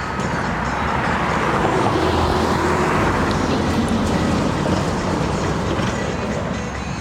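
A passing vehicle: a rushing rumble that builds over the first couple of seconds and then slowly fades away.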